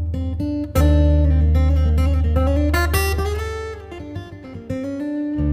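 Background music with guitar over a steady bass.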